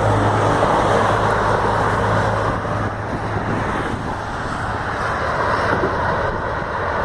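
Steady road-traffic noise from cars passing on a nearby highway, with a low engine drone that fades after the first second.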